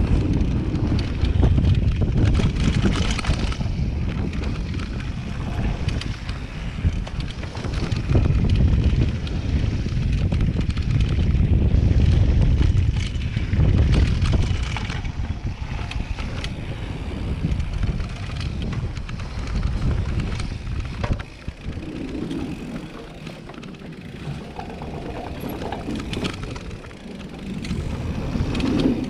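Downhill mountain bike rattling and clattering as it rolls fast over dirt trail and wooden boardwalk, with heavy wind buffeting the microphone. It gets quieter about two-thirds of the way through.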